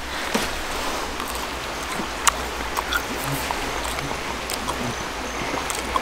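Steady rush of a small mountain stream flowing, with a few faint short clicks scattered through it.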